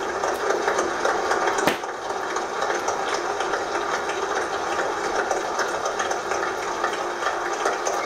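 Large outdoor crowd applauding, played through a television's speaker and picked up in the room: a dense, even patter of clapping with little bass. One sharp click about a second and a half in.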